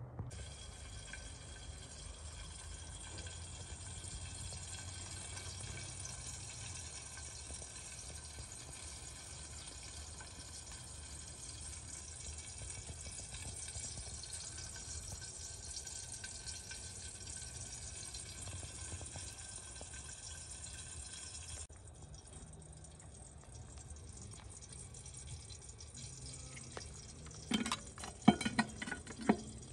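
A steady hiss runs throughout and changes character about two-thirds of the way in. Near the end come several sharp metal clanks as a lid lifter grips the coal-covered lid of a cast iron Dutch oven.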